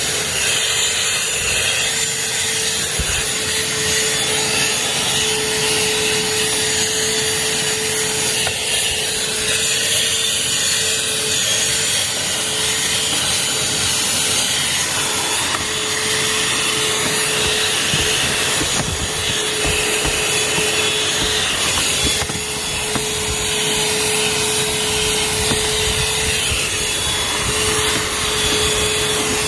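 Shark UltraCyclone Pro cordless handheld vacuum running steadily while cleaning a car interior, its motor holding one steady whine under a rushing airflow.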